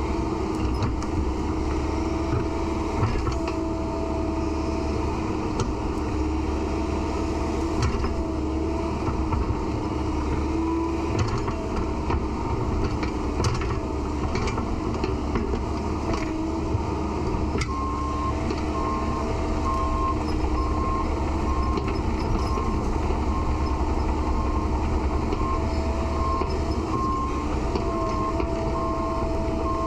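Diesel excavator running and working, its engine note rising and dipping with the load. A little past halfway in, its travel alarm starts beeping at a steady, regular pace.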